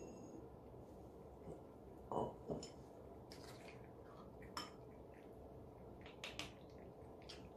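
Light clinks and taps of a spoon against ceramic cat food bowls, a handful spread through, as wet cat food is served.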